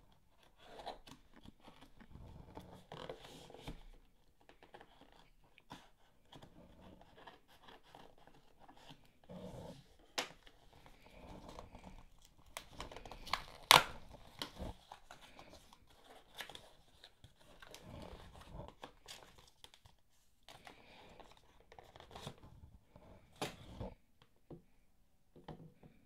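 Cardboard shipping box being opened by hand: packing tape cut and torn away, with intermittent rustling and scraping of cardboard flaps. A single sharp click a little past halfway is the loudest sound.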